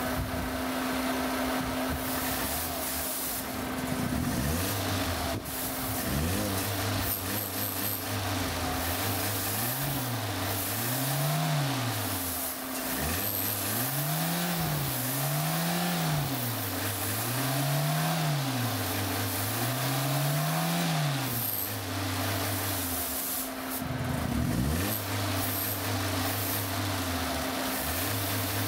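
Toyota 1SZ-FE 1.0-litre four-cylinder engine running with its throttle body open and the air filter off. Its speed swells and falls about every two seconds through the middle stretch while carburetor cleaner is sprayed into the throttle body, and it dips sharply near the start and again near the end.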